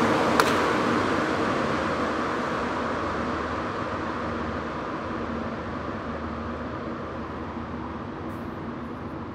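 Montréal Métro Azur rubber-tyred train running off into the tunnel, its running noise and hum fading steadily. A single sharp click about half a second in.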